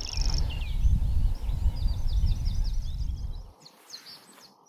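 A loud, low rumble of wind on the microphone that drops away about three and a half seconds in. Above it, a grasshopper warbler's high, insect-like reel ends about half a second in, and another songbird sings high, chirping phrases.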